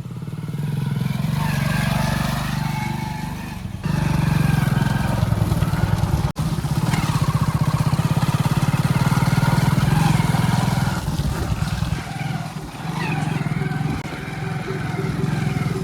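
A vehicle engine running steadily close by, with a brief break about six seconds in.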